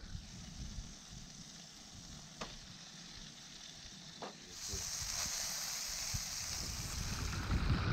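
Coated snapper fillets frying in a pan on a portable gas stove, with a steady sizzle that grows louder about halfway through. There are a couple of faint taps before it swells.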